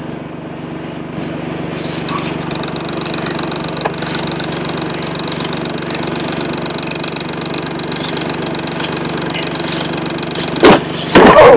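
An engine running steadily at an even speed, with a couple of loud bumps near the end.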